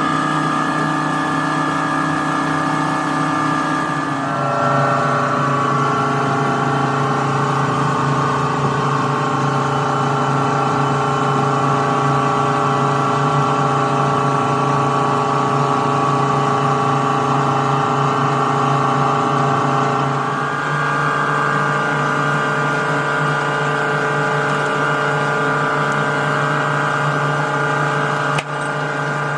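Two-roll rubber mixing mill running steadily while mixing rubber compound, its drive giving a constant mechanical hum with whining tones. The tone shifts a little about four seconds in and again partway through, and there is a sharp click near the end.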